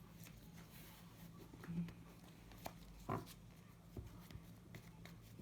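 Playing cards being handled and laid out on a table: a few soft, scattered taps and clicks over a faint low hum.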